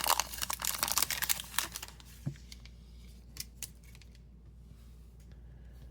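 Plastic wrapper of an Upper Deck hockey card pack being torn open and crinkled, loud for about the first two seconds. After that come a few faint rustles and ticks as the cards are handled, then it goes quiet.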